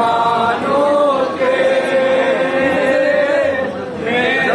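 Male voices chanting together in a Muharram mourning lament, the phrase drawn out into one long held note in the middle before a new phrase begins near the end.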